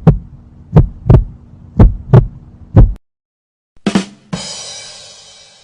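Heartbeat sound effect: paired low thumps, lub-dub, about once a second, stopping about three seconds in. After a short pause come a brief knock and then a bright ringing crash that fades away over about a second and a half.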